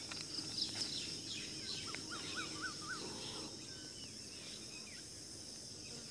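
Woodland ambience: a steady high insect drone with scattered bird chirps. About two seconds in, a bird gives a quick run of about five rising-and-falling whistled notes.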